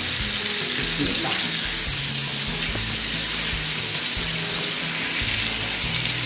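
Marinated chicken pieces sizzling steadily in hot oil in a grill pan on high heat. Background music with a low bass line plays underneath.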